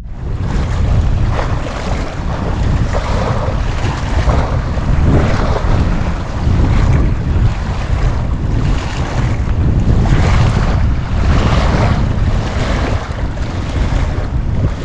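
Wind blowing hard across the microphone: a loud, steady rumble with a rushing hiss that swells and fades about once a second.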